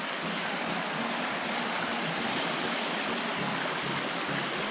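Shallow mountain stream running over stones: a steady rushing of water.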